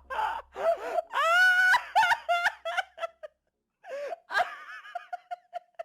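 A man laughing in high-pitched squeals and wails: a long held note about a second in, then choppy bursts, a short pause, and a run of quick short hoots near the end.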